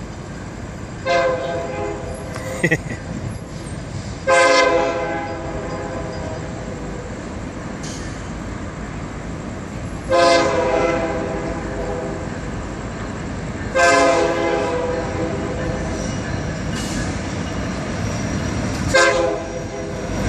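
A Florida East Coast Railway freight train's lead diesel locomotive sounding its horn for grade crossings as it approaches, about five blasts, some held for several seconds, over the low rumble of the train.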